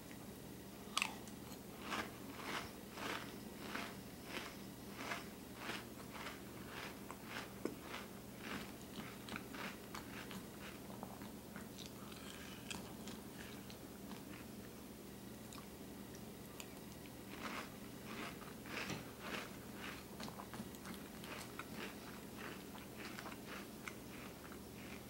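Close-up chewing of crunchy Cinnamon Toast Crunch cereal in milk: runs of crisp crunches, about two or three a second, easing off around the middle and starting again with a fresh mouthful.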